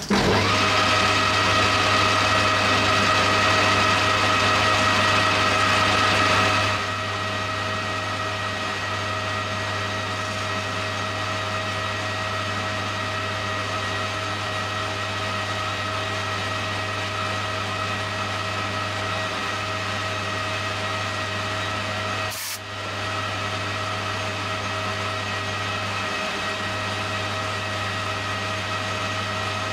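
Lathe running steadily with a low hum and a whine as a hand-guided high-speed steel tool on a freehand turning attachment cuts an aluminium spinner. The cutting is louder for the first seven seconds or so, then settles into lighter, steadier running, with a brief dip about 22 seconds in.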